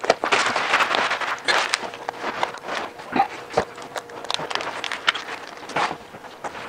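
Vinyl wrap film being handled and worked over a plastic grille: irregular rustling and crackling with scattered sharp clicks and taps.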